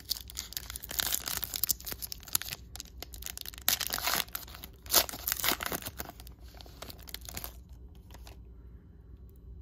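A 2012 Panini Prizm baseball card pack's foil wrapper being torn open and crinkled by hand, a run of crackling and rustling with a few sharp louder rips, stopping about two seconds before the end.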